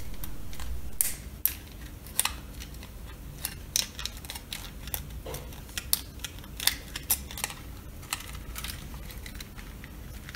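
Irregular small clicks and taps of female wire connectors being worked onto the male terminals of a plastic car reading-light assembly.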